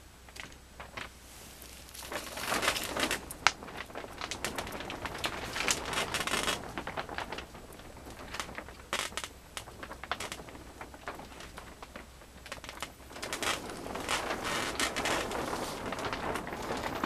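Crackling and rustling as the wood-pellet fuel in a top-lit gasifier stove is lit and catches fire. It comes in two spells with sharp clicks, the second near the end as the flames grow.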